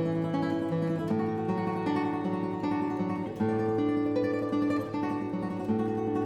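Background music on acoustic guitar: plucked and strummed chords over a held bass note, the chords changing every half second or so.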